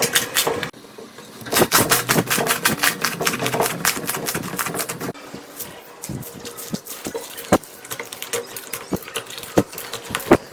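Slime being squished and worked by hand, making rapid sticky clicks and pops; the clicking is dense at first, with a brief lull about a second in, and thins to scattered pops after about five seconds.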